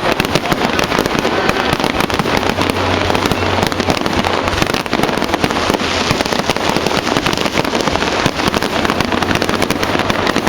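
Fireworks display: a continuous, rapid barrage of bangs and crackles, many overlapping each second.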